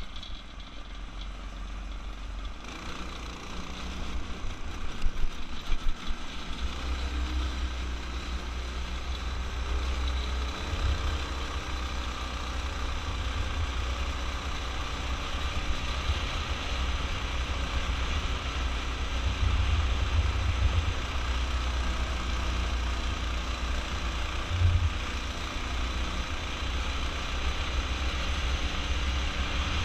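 Offroad go-kart's engine running under throttle through its torque converter as the kart speeds along a dirt road, with tyre and gravel noise and heavy wind rumble on the helmet microphone. A few loud jolts about five seconds in.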